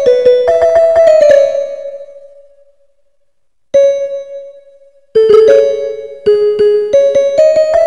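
A phone piano app playing a simple melody one note at a time in the middle register. A quick run of notes fades away, a single note sounds after a short gap, and the tune picks up again about five seconds in.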